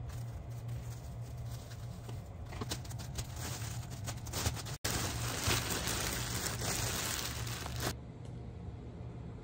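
Cling film and a thin plastic bag crinkling and rustling as bread rolls are wrapped and bagged, loudest in the second half and stopping abruptly near the end, over a steady low hum.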